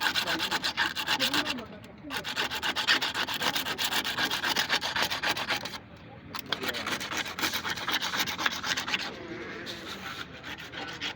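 Fast rhythmic rubbing strokes on a surface, about eight to ten a second, breaking off briefly about two seconds in and again about six seconds in, and growing fainter near the end.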